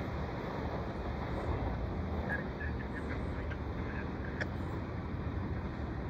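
Steady low rumble and hiss of a freight train's wheels rolling away down the track, with a few faint high chirps about two seconds in.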